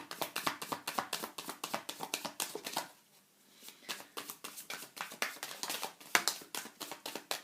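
Tarot cards being shuffled by hand to draw a clarifying card: a fast run of card flicks and slaps that pauses briefly about three seconds in, then resumes and stops near the end.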